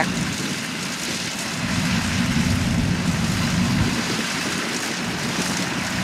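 Kubota rice combine harvester running steadily as it cuts lodged rice: a continuous engine and machinery drone that grows somewhat louder about a second and a half in.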